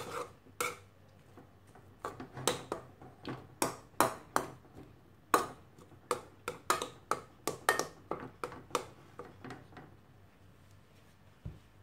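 White plastic spatula stirring a dry brinjal stir-fry in an aluminium kadai, clicking and tapping against the pan in a quick, irregular series that stops about nine seconds in, with one more tap near the end.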